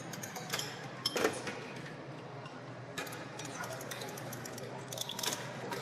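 Casino floor ambience: a steady background murmur under frequent sharp clicks and clatters of small hard gaming pieces, loudest in a cluster about a second in and again near the end.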